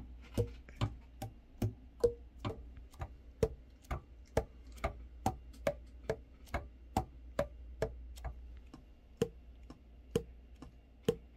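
Selmer Reference 54 alto saxophone keys pressed and released in a steady rhythm, the pads closing on the tone holes with a hollow 'tong' pop about twice a second. The crisp pops show the freshly set pads seal tightly on every tone hole.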